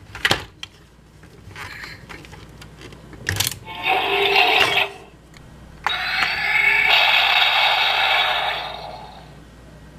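Deluxe Flying Baymax toy playing electronic sound effects through its small built-in speaker. There is a click near the start, a short burst about four seconds in, and a longer one from about six to nine seconds that opens with a quick rising tone.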